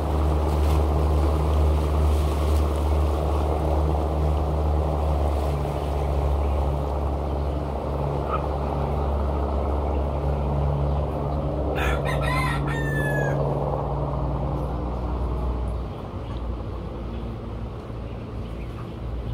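Low, steady drone of a boat engine running on the river, dropping in level about three-quarters of the way through. A rooster crows once, about twelve seconds in.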